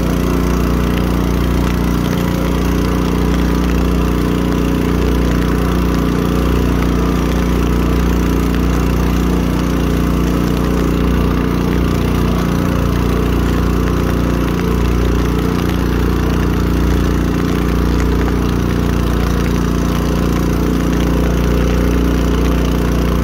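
Small boat engine running steadily at constant speed: an even, unbroken drone.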